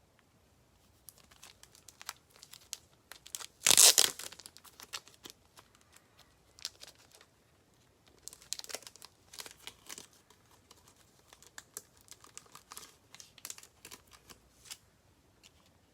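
Plastic packaging being handled, crinkling in short irregular crackles, with one loud rip about four seconds in.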